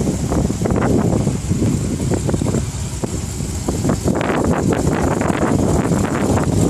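1969 Corvette's L46 350 small-block V8 running, a steady low rumble with an uneven texture that gets busier about four seconds in.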